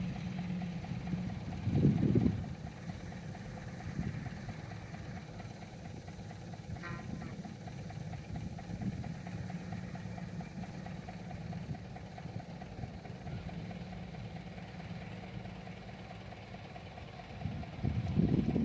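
Kobelco SK120 excavator's diesel engine running steadily, with a louder low surge about two seconds in and again near the end as it works.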